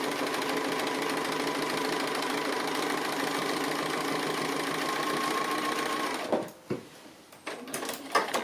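Sewing machine running steadily, sewing a free-motion straight stitch around a fabric applique, stopping suddenly about six seconds in, followed by a few sharp clicks and knocks.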